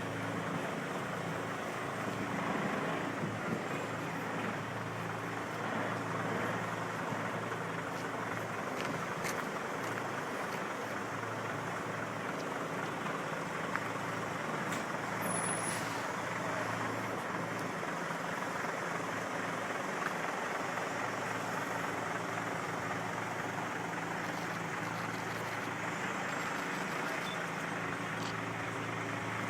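Heavy truck's diesel engine running steadily, a low even hum with a steady pitch.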